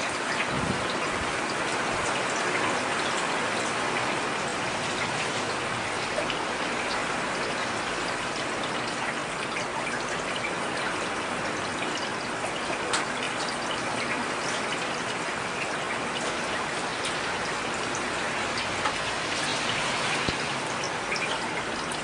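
Steady heavy rain falling, with a few single drop ticks standing out now and then.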